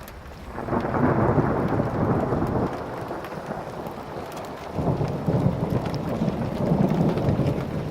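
Thunder rumbling through a hailstorm, over the steady patter of hail and rain. The rumble builds about half a second in and swells again around five seconds.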